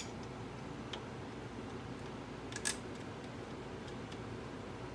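A few small clicks and taps of metal parts being handled as a bar is fitted to an embroidery machine's spool tray. There is one at the start, a faint one about a second in, and a sharper double click near the middle, over a steady low hiss.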